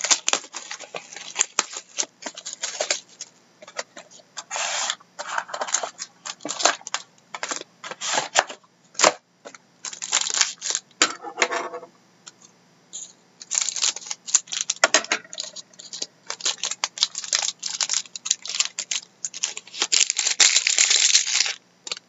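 Trading card packaging being torn and opened by hand and cards handled: irregular crinkling, tearing and clicking in short bursts with brief pauses.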